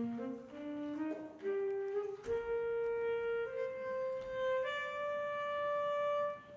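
Saxophone played solo: a run of quick notes, then three long held notes, each a step higher than the last, breaking off abruptly near the end.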